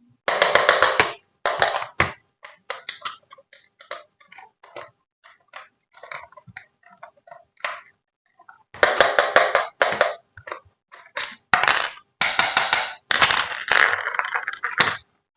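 Toy packaging being handled and opened: bursts of crinkling and scraping with short clicks and taps between them, the longest bursts about nine seconds in and over the last few seconds.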